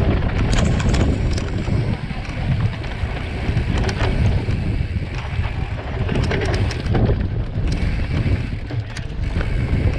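Wind rushing over the microphone of a mountain bike descending dry, dusty singletrack, with the tyres running on dirt and scattered knocks and rattles from the bike over bumps.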